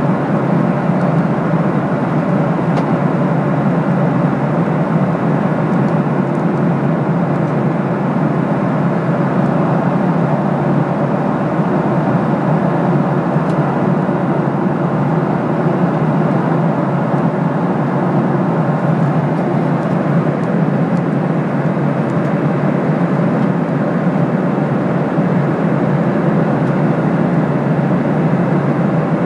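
Steady, unchanging cabin noise inside a Boeing 737-800 in flight: the rush of air along the fuselage and the hum of its CFM56 jet engines.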